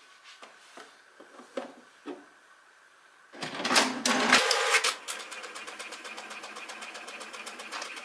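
HP all-in-one inkjet printer starting a photocopy: a few light clicks of buttons and handling, a loud clatter about three and a half seconds in, then the mechanism runs steadily with a fast, even ticking.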